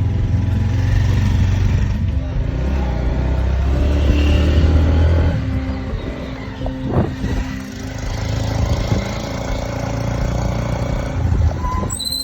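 A motor vehicle's engine running, its low drone shifting in level a few times.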